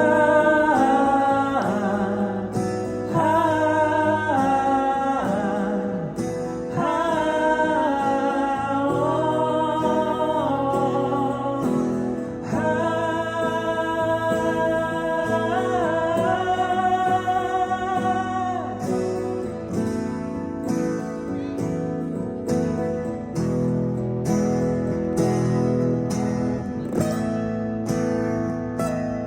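Live music: a voice holding long wordless notes over strummed acoustic guitar, then from about two-thirds of the way through the acoustic guitar strumming on its own.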